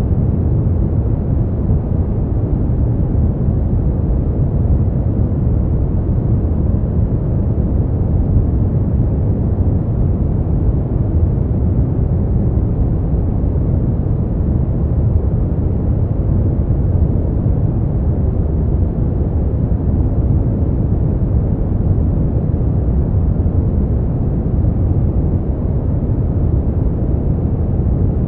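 Brown noise: a steady, deep rushing hiss with its weight in the low end and little treble, unchanging throughout.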